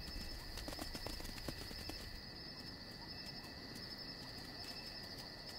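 Night insects trilling steadily at two high pitches, with a few faint ticks and rustles in the first couple of seconds.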